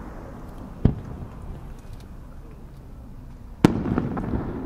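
Aerial firework shell: a dull thud from the mortar launch about a second in, then a louder, sharper bang as a round star shell bursts near the end, followed by a few fainter pops.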